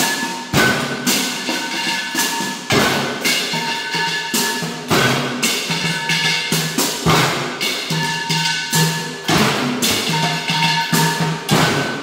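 Improvised tin-can marching band (banda de hojalata) playing a cumbia rhythm: drum strikes about once a second under steady ringing metallic tones.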